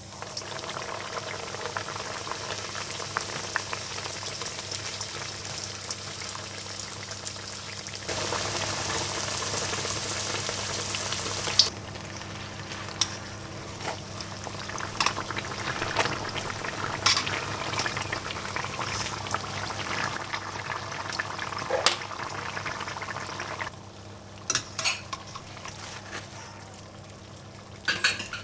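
Lihapiirakka, yeast-dough hand pies filled with mince and rice, deep-frying in hot oil in a stainless steel pan: a steady sizzle that starts as a pie goes into the oil, loudest for a few seconds before dropping off suddenly. Sharp clinks of a metal fork against the pan come as the pies are turned, and the sizzle thins near the end as they are lifted out.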